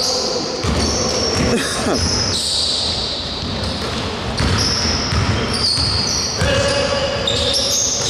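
Basketball game on a hardwood gym floor: the ball bouncing as it is dribbled, sneakers squeaking in short high squeals, and players calling out, echoing in the large hall.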